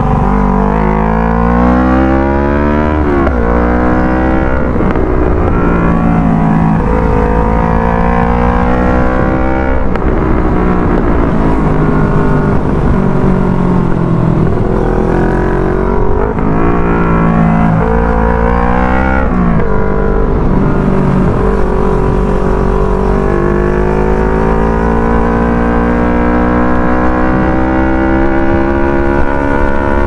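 CFMOTO NK400's parallel-twin engine through a Yoshimura Alpha R77 exhaust, heard from the rider's seat on the move. The exhaust note climbs under acceleration, drops sharply at gear changes and roll-offs, then climbs again several times, with a long slow climb near the end. A steady wind rush runs underneath.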